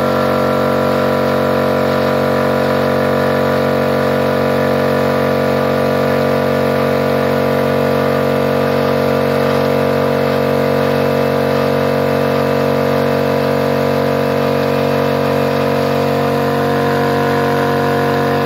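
MultiPro 3/4 HP electric air compressor running steadily under load as it fills its tank, after its motor's thermal protector has been loosened so it no longer cuts out when hot. The motor and pump hum stops abruptly at the very end.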